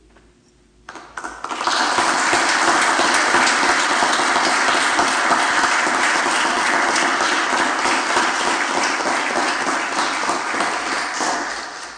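Applause: steady hand clapping that breaks out about a second in, stays dense and even, and fades away near the end.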